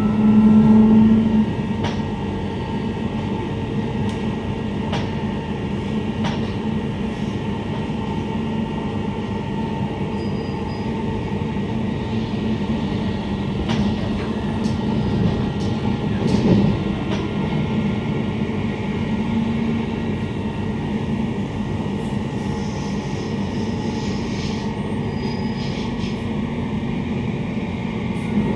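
Inside a Queensland Rail IMU 120 series electric multiple unit with Adtranz propulsion, running between stations: a steady rumble of wheels on rail with the traction equipment's hum. The hum is loudest in the first second and a half, and a few sharp clicks come at irregular intervals.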